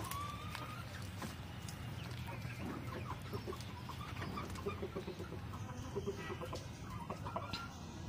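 Chickens clucking in runs of short, quick notes.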